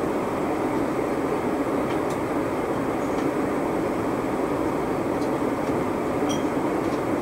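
Steady rushing hum of a Boeing 777 cabin in flight: engine and airflow noise heard from inside the passenger cabin, with a few faint clicks.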